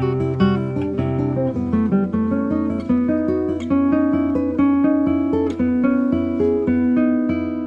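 Background music played on acoustic guitar, with a run of plucked notes.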